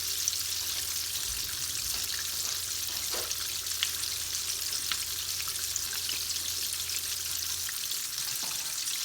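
Flour-coated chicken drumsticks deep-frying in hot vegetable oil in a wok: a steady sizzle dotted with small crackles.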